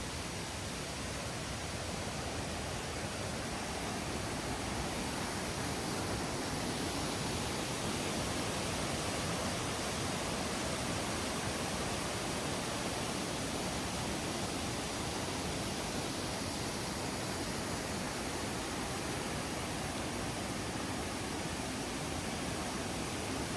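Rushing water of a stream or small waterfall, a steady, even wash of noise.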